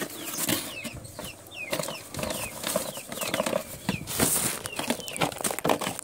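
Birds chirping over and over in short falling calls, about two a second, mixed with rustling and clicks from a box being unpacked, louder about four seconds in.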